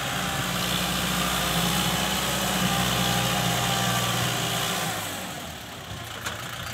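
Kubota tractor's diesel engine running steadily while its front blade pushes a heap of dirt; the engine note eases off about five seconds in, and there is a sharp click near the end.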